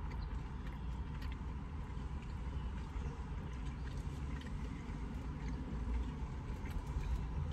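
Steady low hum inside a car cabin, with faint chewing sounds.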